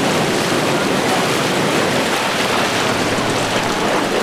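Water rushing and splashing along the hull of a sportfishing boat under way, with wind buffeting the microphone: a steady, even wash of noise.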